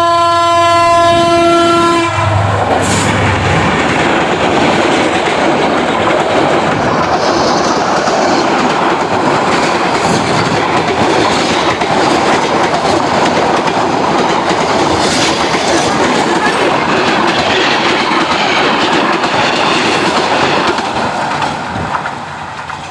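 A train horn sounds a steady chord that cuts off about two seconds in. A passenger train then passes at speed, with loud continuous wheel-and-rail running noise that fades near the end.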